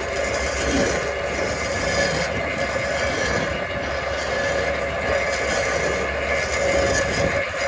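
Stump grinder running steadily, a continuous mechanical noise with a steady high whine over it.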